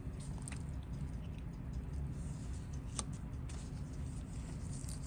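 Small clicks and handling noises as the snap-on case back of a Seiko 61RW pocket watch is worked off, with one sharper click about three seconds in, over a steady low hum.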